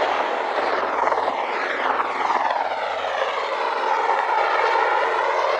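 UH-1Y Venom helicopters running, twin turbine engines and main rotors together making a loud, steady noise, as one helicopter lifts off. The tone sweeps slowly up and down throughout.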